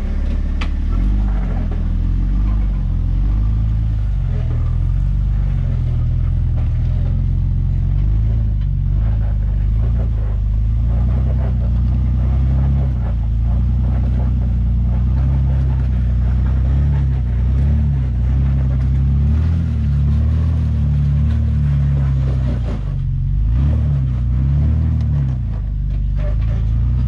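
A 4x4 rock crawler's engine running at low revs under load as it climbs a steep rock ledge, its pitch stepping up and down a little with the throttle.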